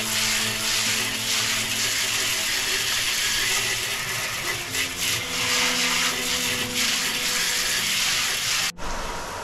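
Water jet spraying hard as fresh-set mortar is washed off: a steady, loud hiss that cuts off suddenly near the end.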